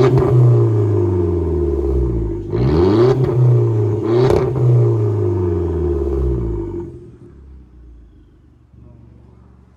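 Audi A1 engine blipped through a straight-pipe exhaust with the resonator removed: three quick revs, the pitch falling back toward idle after each. About seven seconds in the sound drops away to a faint low hum.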